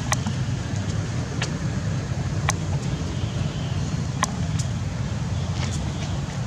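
Steady low rumble, like distant motor traffic, with a brief sharp tick every second or so.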